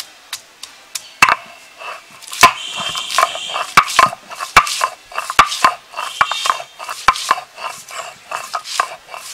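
Stone roller (nora) crushing garlic cloves on a flat pitted grinding stone (shil): many irregular sharp knocks and crunches as stone strikes stone and the cloves crack.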